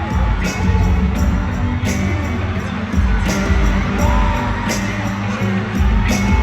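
Live pop band playing through a concert sound system, heavy in the bass, with a drum hit about every second and a half and a voice briefly gliding between sung lines.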